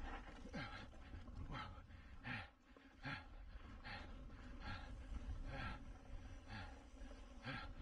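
A cyclist breathing hard and rhythmically while racing a mountain bike, a little more than one breath a second, over a steady low wind rumble on the microphone.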